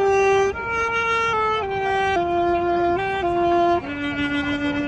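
Saxophone playing a slow melody of held notes. It steps up about half a second in, then walks down note by note to a lower note held near the end.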